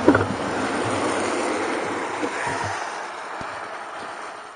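Steady rushing noise of riding a bicycle beside a road: wind and tyre hum with traffic. It fades over the last couple of seconds and cuts off sharply at the end.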